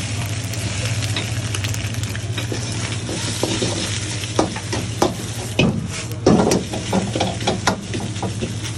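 Chicken and egg sizzling as they fry in a wok, with a metal ladle scraping and clanking against the wok as it stirs them. The clanks come thicker and louder in the second half. A steady low hum runs underneath.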